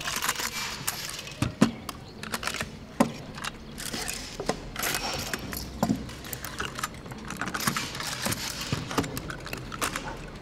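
Irregular metal clicks and clacks of AK rifles being handled and stripped, parts snapping and sliding, with a few louder knocks.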